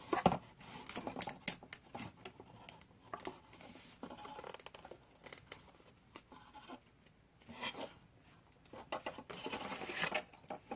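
Camera packaging being handled and pulled open: irregular clicks, scratches and rustling of plastic and cardboard, with a longer scratchy rustle about nine seconds in.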